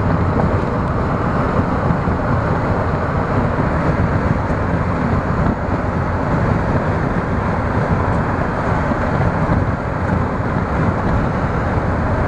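Steady rumble and hiss of a car driving, road and engine noise heard without a break.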